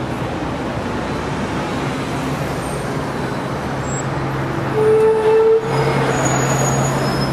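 Steady road traffic noise, with a short steady tone about five seconds in that is the loudest sound, cut off suddenly and followed by a steady low hum.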